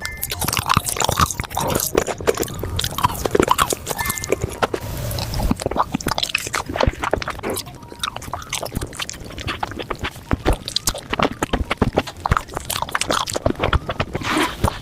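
Close-miked mukbang eating sounds, sped up: rapid, irregular crunching and chewing with some scraping, continuing throughout.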